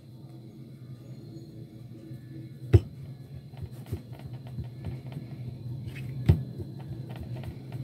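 A coil of paratha dough set down and pressed flat by hand on a plastic-covered table: two sharp knocks, about three seconds in and near six seconds, with light taps and rustles between, over a steady low hum.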